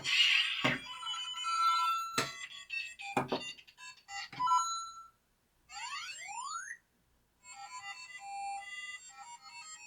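Electronic game-style sound effects and jingles from a LEGO Mario figure's speaker. There are several sharp clicks with short tones, then a pair of sweeping gliding tones about six seconds in, followed by a run of short beeping notes.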